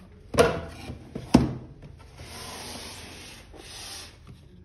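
Cardboard packaging being handled: two sharp knocks against the table about half a second and a second and a half in, then about two seconds of cardboard sliding and rubbing as the box is worked open.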